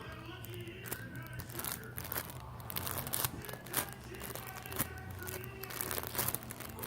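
Crinkling, clicking handling noises as a foam squishy toy is turned and squeezed in the hands, with faint pitched sounds in the background.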